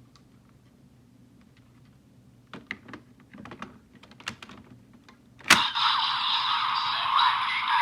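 Plastic clicks as Raise Buckle halves are handled and fitted into a Bandai Desire Driver toy belt, then a sharp snap about five and a half seconds in. The belt's loud electronic sound effect starts straight after the snap.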